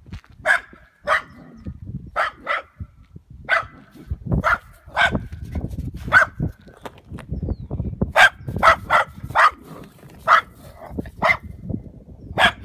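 A dachshund barking again and again: about fifteen short, sharp barks in irregular bunches, with a pause of a second or two around seven seconds in.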